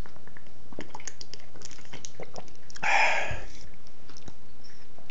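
A person eating: small wet clicks and chewing sounds, with one louder noisy burst lasting under a second about three seconds in.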